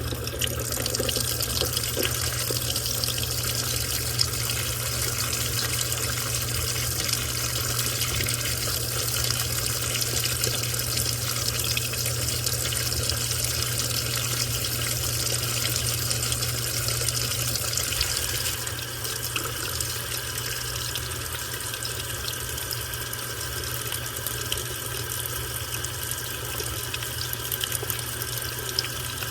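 Washing machine taking in water: a steady rush like a running tap, with a low steady hum under it. The rush eases a little about 18 seconds in.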